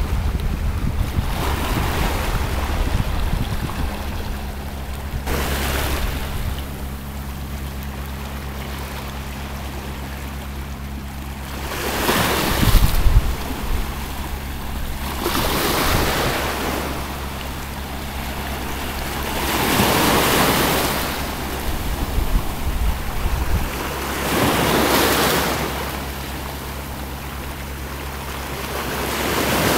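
Small sea waves breaking on a sandy beach, washing in and out in regular surges every four or five seconds. Wind rumbles on the microphone underneath, gusting hardest near the start and about twelve seconds in.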